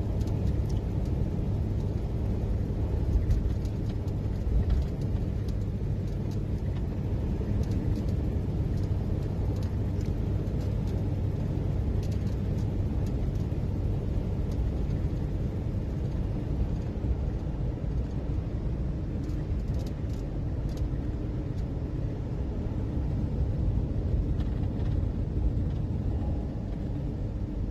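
Box van driving, heard from inside the cab: a steady low rumble of engine and tyre noise.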